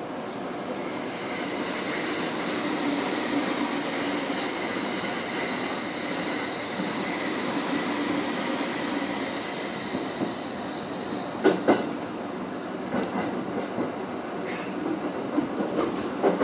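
JR East 209 series electric commuter train heard from the driver's cab, pulling away from a station and running: a steady motor hum and wheel-on-rail rumble that builds over the first couple of seconds. Wheels clack sharply over rail joints about eleven seconds in and again near the end as the train crosses points.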